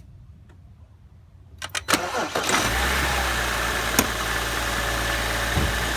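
A 2011 BMW 535i's inline-six engine cranked by the starter about two seconds in, catching quickly and settling into a steady idle. A single sharp click about four seconds in.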